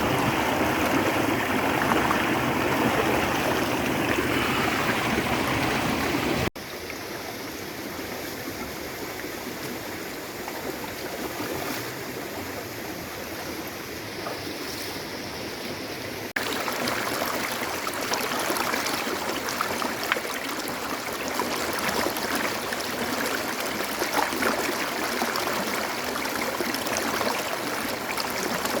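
Running water, like a stream flowing, as a steady rushing noise. It drops abruptly to a quieter, thinner sound about six seconds in and jumps back to the fuller sound about ten seconds later.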